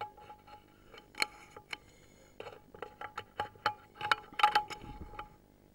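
A run of irregular light metallic clinks and knocks, some leaving a short ringing tone. They are busiest about four to five seconds in, then stop.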